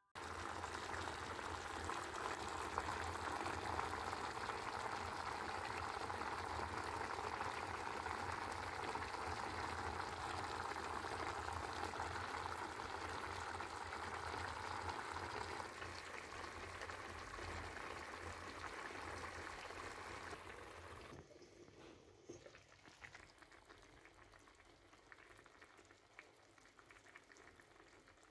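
Tuna and vegetables cooking in a metal pan on the stove, the sauce simmering with a steady bubbling hiss. The sound drops to a much quieter level about 21 seconds in.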